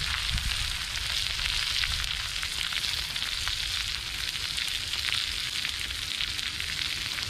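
Eggs with tomato and cheese frying in a thick-walled aluminium pan over a wood-burning chip stove: a steady sizzle with small pops and ticks, over a low rumble.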